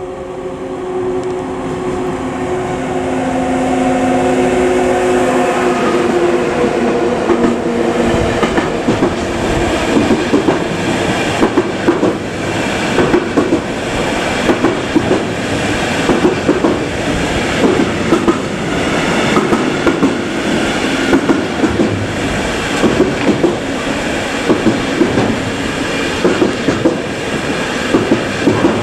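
A train passing close by: a steady hum in the first few seconds, then a long, regular clickety-clack of wheels striking the rail joints as the cars go by.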